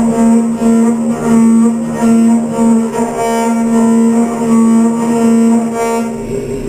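High-speed CNC milling of steel: a 3/4-inch indexable end mill in a vertical machining centre singing a steady pitched whine as its teeth cut, swelling and fading in a regular pulse about twice a second as the trochoidal toolpath engages and leaves the cut. The whine drops away briefly near the end.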